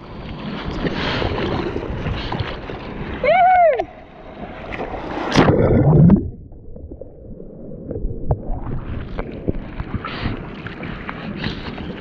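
Whitewater splashing and rushing around a bodyboard, heard through a board-mounted action camera. A brief sliding tone rises and falls about three seconds in. The loudest moment is a wave's rush around five seconds in, then the sound goes muffled for about two seconds as the board duck-dives under the wave, and splashing returns as it surfaces.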